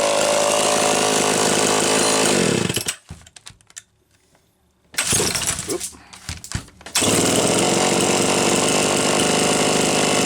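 1980 Homelite Super XL Automatic two-stroke chainsaw running, then winding down and stopping about two and a half seconds in. After a short quiet gap with a few clicks, it sputters unevenly for about two seconds, then catches and runs steadily again.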